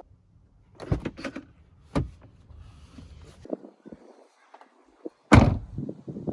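Tesla Model S door being worked: a low motor hum with two sharp clicks, then a loud thump about five seconds in.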